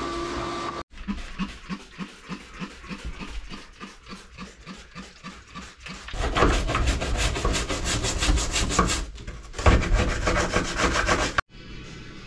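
A shop vacuum runs steadily and cuts off about a second in. Then come rhythmic rubbing strokes on wood, about three a second, turning faster and louder about six seconds in.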